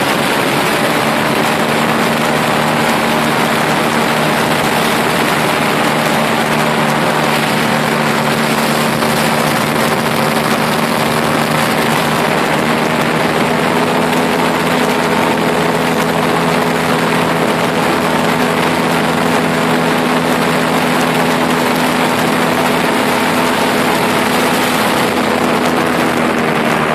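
Open-cockpit light aircraft in flight: engine and propeller running steadily, with a strong rush of wind over the microphone.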